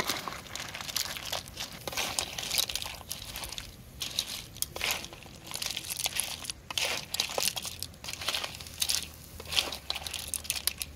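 Irregular clattering and crackling of mussel shells knocking together and against a metal pan, in quick uneven bursts of clicks and crunches.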